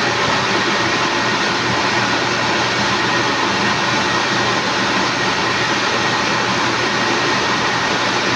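Steady, loud machine noise, a constant whooshing running without change, with a faint hum under it.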